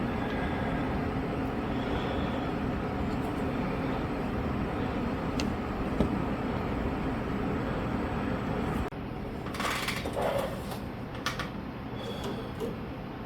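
A steady machine noise that cuts off suddenly about nine seconds in. It is followed by a few light clicks and scrapes of small parts being handled.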